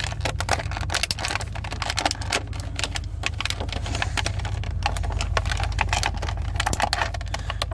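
Toy packaging crackling and clicking as a figure is worked out of its box, a dense, irregular run of quick clicks and crinkles.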